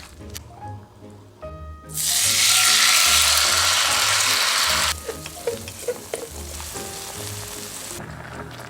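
Food sizzling as it fries in a stainless-steel pot. It starts loud and suddenly about two seconds in, drops abruptly to a softer sizzle about three seconds later, and dies away near the end.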